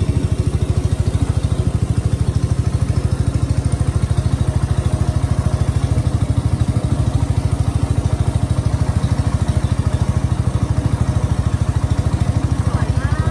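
Engine of a small wooden boat running steadily under way, a fast, even chugging with a deep hum.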